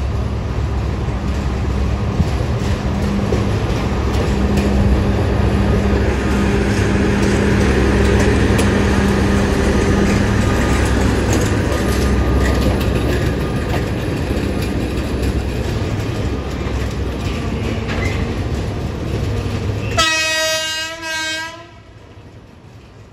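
A Thai railway track-maintenance vehicle (RBN 045) and the van it tows passing close by, its engine running steadily and the wheels clattering over the rail joints. Near the end the train horn sounds one loud blast of about a second and a half, briefly dipping before it stops.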